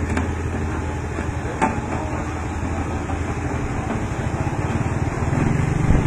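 Road roller's diesel engine running steadily as the compactor drives over loose dirt, with one sharp knock about a second and a half in. Near the end a second, higher engine note comes in.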